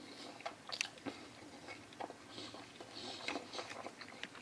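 Faint chewing of a mouthful of hot dog, with scattered small clicks and soft mouth sounds.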